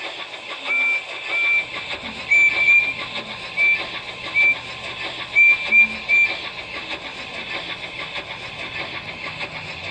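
Train whistle giving about nine short toots, some in quick pairs, over the steady rushing noise of a train running along the line.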